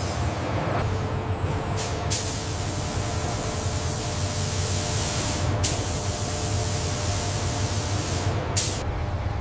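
A steady hiss over a constant low machinery hum, with sharp clicks about two seconds in and midway, and another near the end as the hiss stops.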